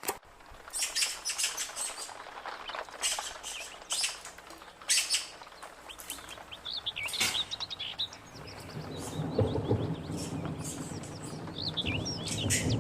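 A small bird chirping and chattering in rapid high-pitched bursts, with twittering runs near the middle and near the end. A low rumbling sound joins it about two-thirds of the way in.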